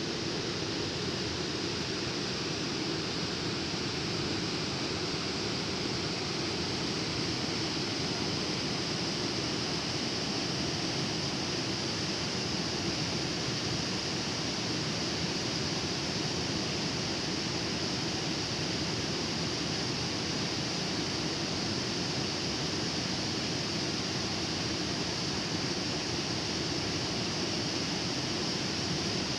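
Steady rush of a heavy flow of river water pouring over a weir and churning at its foot.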